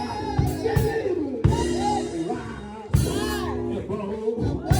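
Live church music: a drum kit playing hits under sustained chords, with voices singing and calling out over it.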